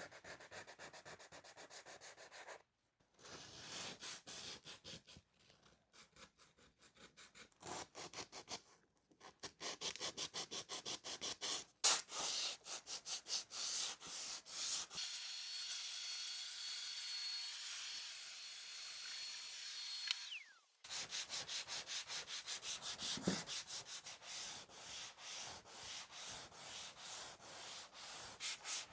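Fast back-and-forth rubbing strokes on a teak veneer tabletop, several a second, in short stretches split by cuts. In the middle a steady high whine runs for about five seconds and stops with a falling pitch.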